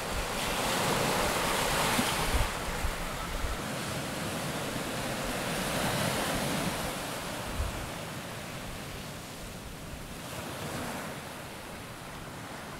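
Sea surf washing onto a rocky shore, swelling and easing, with wind rumbling on the microphone.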